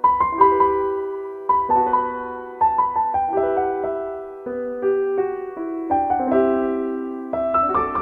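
Background piano music: a gentle melody of struck notes in short phrases, each note dying away.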